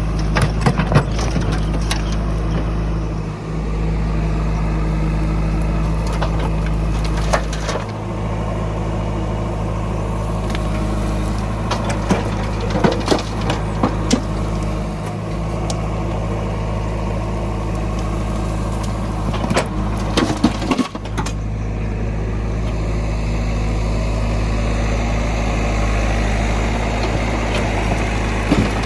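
Heavy diesel engine of a backhoe loader running steadily under work, with scattered metallic clanks and knocks as it digs and dumps mud.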